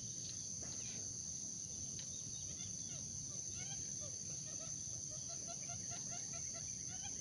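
Outdoor insect chorus, a steady high-pitched buzz from crickets or cicadas, with many short bird chirps scattered over it, including a quick run of repeated notes about five seconds in.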